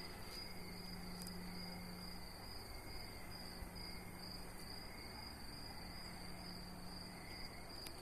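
Night insects trilling steadily in a continuous high-pitched chorus, over a steady low hum.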